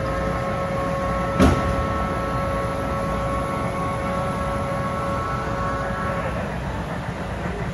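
Sound-equipped HO scale model of steam locomotive 475 blowing its whistle in one long, steady blast of about six seconds. A sharp knock comes about a second and a half in.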